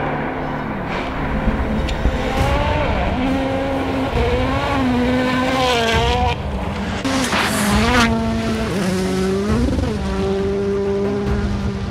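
World Rally Car engines at full throttle on loose-surface stages, the pitch climbing and dropping again and again through gear changes. A couple of short rushing bursts of tyre and gravel noise come in the middle.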